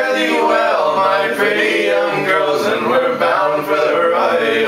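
A group of men singing a sea shanty unaccompanied, voices held on long chorus notes.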